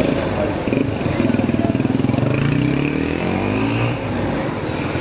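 Motorcycle engine accelerating: its pitch rises steadily from about a second in until nearly four seconds in, then drops.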